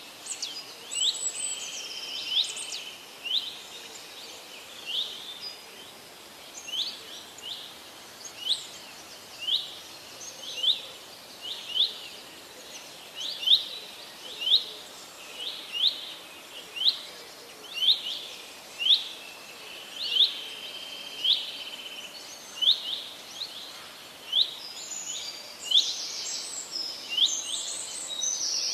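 A songbird repeating a short, sharp call note about once a second, with other birds chirping more busily near the start and near the end, over a steady faint background hiss.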